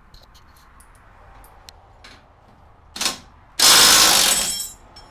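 Faint clicks of hand tools on bolts, then a short burst about three seconds in and a loud burst of about a second from a cordless power tool, the loudest sound, tailing off as it stops.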